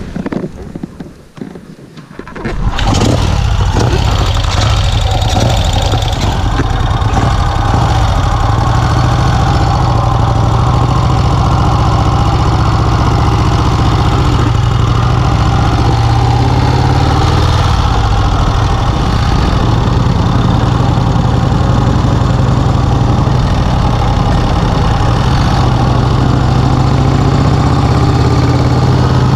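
1951 Vincent Rapide's 998 cc V-twin engine starting about two and a half seconds in, then idling steadily.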